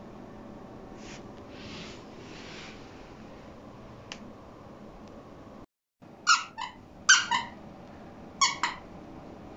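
Young pug barking in short, high-pitched yips: three quick pairs of barks in the second half, after a quiet first half. Attention-seeking barking.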